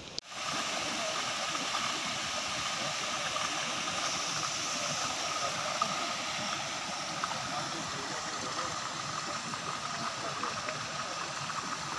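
Water rushing steadily along a narrow, fast-flowing stream channel.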